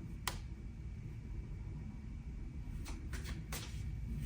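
Tarot cards handled on a table: a few short soft clicks and taps, one just after the start and a cluster of three near the end, over a low steady room hum.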